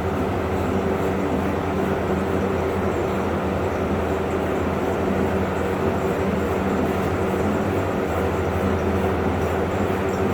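A steady mechanical drone: a low hum with a rushing noise over it, unchanging throughout.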